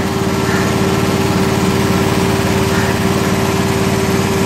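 Cow milking machine running steadily while milking: the 1 HP pump unit gives a constant, even hum with a strong steady tone.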